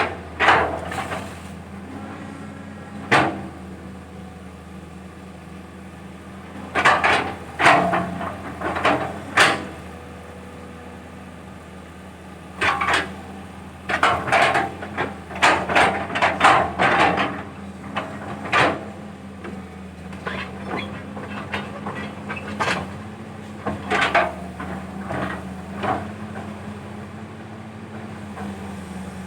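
Caterpillar 320 hydraulic excavator's diesel engine running steadily while it digs, with repeated sharp knocks and clanks from the machine working, in clusters about a quarter and half-way through.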